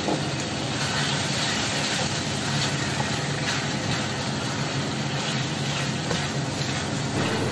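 Chicken and sliced onion sizzling steadily in a frying pan on a gas burner, stirred with a spatula that scrapes the pan now and then.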